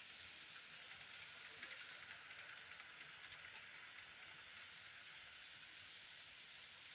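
Faint steady hiss with light rapid clicking, a little louder between about one and a half and three and a half seconds in: Bachmann Branch-Line OO gauge model locomotives running on the track.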